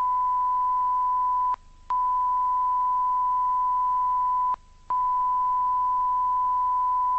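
A steady electronic beep tone at a single pitch, broken twice by short gaps of about a third of a second.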